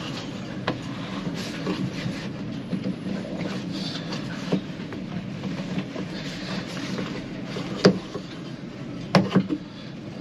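A steady low rumbling noise runs throughout, with a few sharp knocks: one near the start, a louder one toward the end, and two close together just after it.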